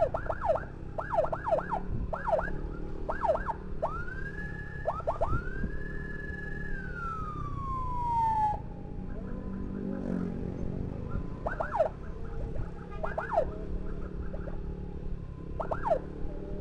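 Electronic emergency siren giving short, quick yelp chirps in clusters, used to clear traffic for an ambulance escort. About four seconds in it rises into a held wail that winds down over a few seconds, and a few single chirps follow near the end. Under it runs a steady motorcycle engine with traffic noise.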